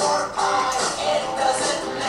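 Music with a steady beat and a melody line, played for a dance routine.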